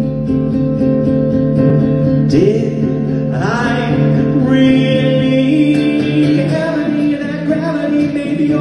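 Live acoustic guitar strummed at a steady pace, with singing joining in about two and a half seconds in, recorded from the audience.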